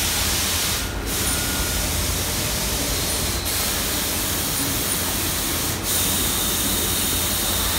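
Ceramic tile glazing line running: a steady, loud hissing machine noise as the conveyor carries tiles through, with a few brief dips.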